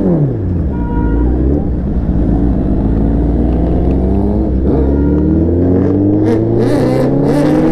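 Suzuki Hayabusa's inline-four engine heard from on board: its pitch falls off after a throttle blip in the first second, then rises steadily as the bike accelerates through a gear.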